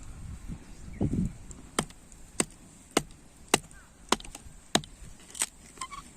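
Wood being chopped, likely kindling or firewood with a hatchet: seven sharp strikes in a steady rhythm, about one every 0.6 seconds.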